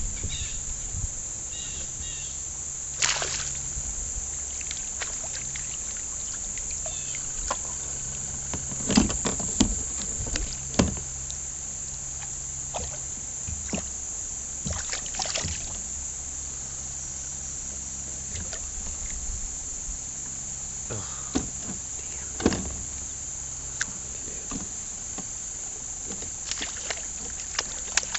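Kayak being paddled: paddle strokes in the water, with a few sharp knocks, most around ten seconds in and again after twenty. Underneath runs a steady high chirring of insects.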